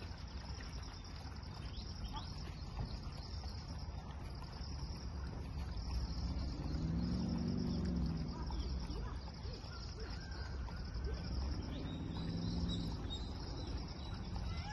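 Insects chirping in a steady, pulsing high drone over low outdoor rumble. A low droning sound swells twice, about six seconds in and again near the end.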